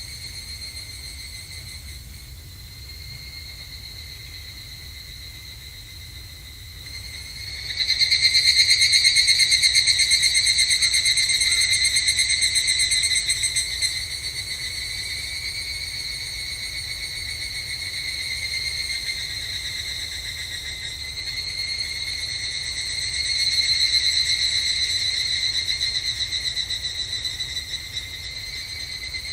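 Higurashi (evening cicadas, Tanna japonensis) singing: a high, rapidly pulsing trill, faint at first, then much louder from about seven seconds in. It eases off a little and swells again near the end.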